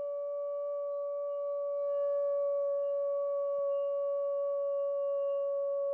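A steady held tone at one unchanging pitch, with a few fainter overtones above it.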